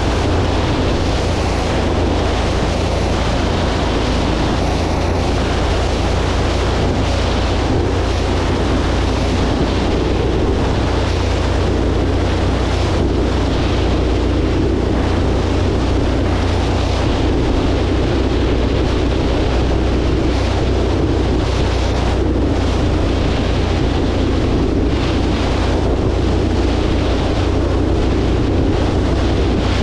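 Light aircraft in flight: the steady low drone of engine and propeller under a rushing wash of air noise, holding an even level throughout.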